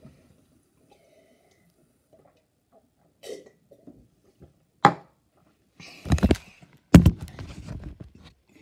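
Handling noise on the recording phone as it is gripped and moved: a sharp click, then loud knocks and rubbing, the loudest thump about seven seconds in, fading into rustling.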